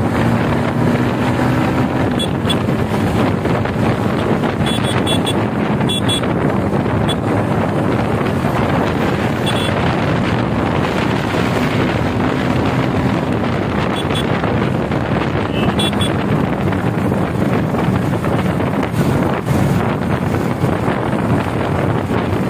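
Wind rushing over the microphone of a motorcycle at speed, with the Yamaha MT-15's single-cylinder engine running under it as the bike is ridden at 65 to 85 km/h in fourth and fifth gear.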